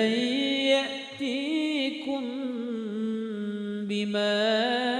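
A single voice reciting the Quran in a slow melodic chant (tajweed), drawing out the word "ya'tikum" in long held notes with wavering, winding ornaments. There is a brief breath break near the end.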